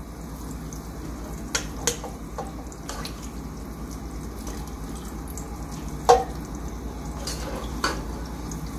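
A spoon knocking and scraping against a nonstick pan and a stainless steel colander as oil-soaked potato and onion pieces are scooped out and dropped in to drain: several short clatters, the loudest about six seconds in. Under it runs a steady hiss from the oil simmering over low heat.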